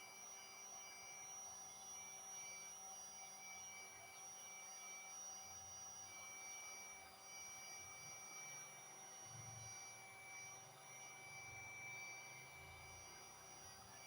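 Handheld heat gun running steadily, heard faintly: a constant high motor whine over a soft hiss of blown air.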